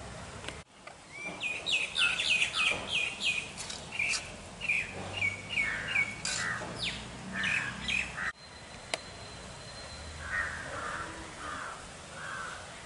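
Small birds chirping: a quick run of short falling chirps, several a second, for several seconds, then softer calls after a break.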